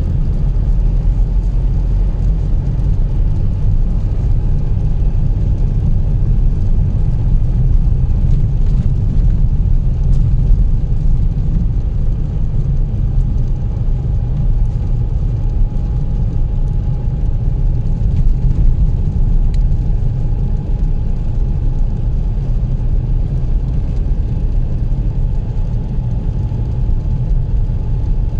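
A car running along a road, heard from inside: a steady, loud low rumble of engine and road noise. A faint steady whine comes in about halfway through.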